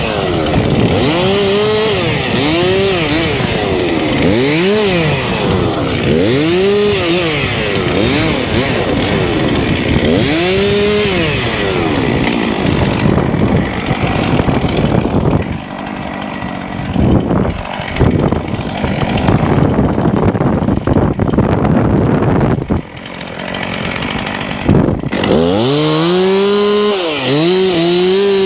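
Two-stroke chainsaw revving up and down over and over, about every two seconds, then holding a steadier, lower note through the middle, as when working through a cut, before the revving starts again near the end.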